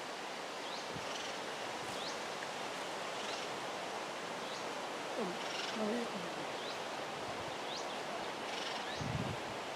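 Jungle ambience: a steady hiss with short high chirps repeating about once a second. A brief low wavering call comes about five to six seconds in, and a soft thump comes near the end.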